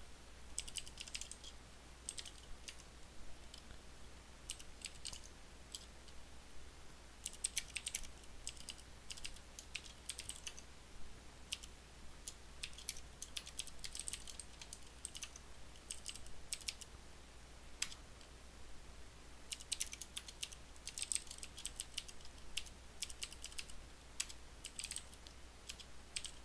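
Computer keyboard typing in quick bursts of keystrokes with short pauses between them, over a faint steady low hum.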